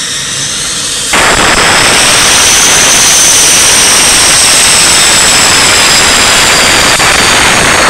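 Dassault Mirage F1's Atar turbojet running on the ground with a high turbine whine; about a second in, its exhaust blast sweeps over the microphone and a loud, even rush of noise swamps everything, then stops abruptly.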